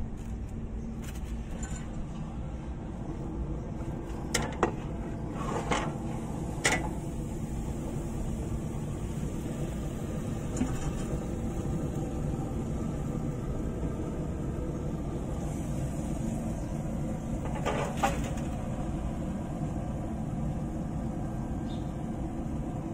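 Steady low mechanical hum, with a few sharp metal clinks from the smoker's grill grates being handled: several about five to seven seconds in and one more near eighteen seconds.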